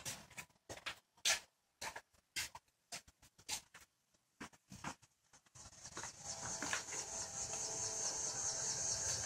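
Short, irregular rustling noises, then about halfway through a steady, high-pitched insect chorus comes in and carries on.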